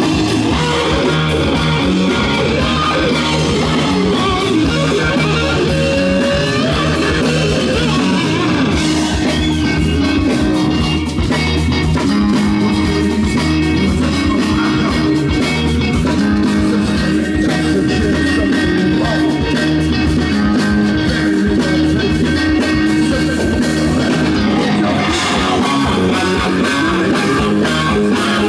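Live rock band playing loud, with electric guitars over bass and drums. The drumming, with cymbals, gets busier about nine seconds in.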